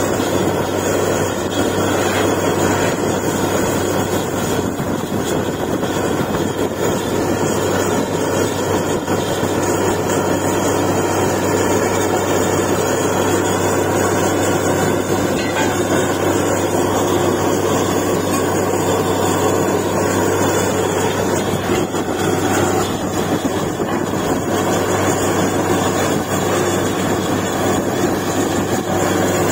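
Truck-mounted borewell drilling rig running steadily as it drills, with dust and cuttings blowing out of the bore hole.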